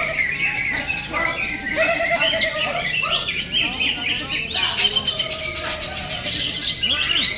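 Cucak ijo (greater green leafbird) singing a loud, varied song of quick chirps and whistles, with a fast rattling trill a little past halfway.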